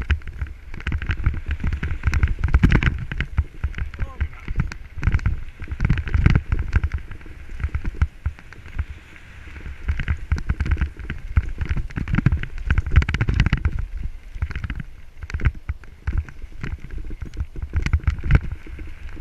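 Mountain bike descending a rough gravel trail: tyres crunching over loose stones and the bike rattling over bumps in quick, uneven clatters.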